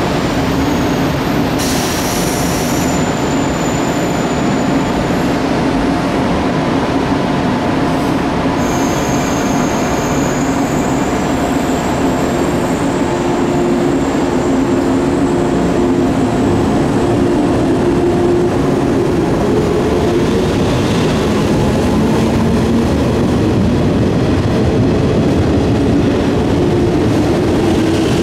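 JR 115 series resistor-controlled electric train idling at the platform with a steady machinery hum, then pulling away. Its motor whine rises slowly in pitch as it gathers speed through the second half. Two short high hisses come about two and eight seconds in.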